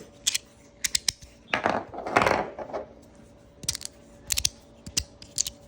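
Magnetic fidget slider being slid and snapped, giving sharp clicks, singly and in quick pairs, with a rougher sliding rasp about two seconds in.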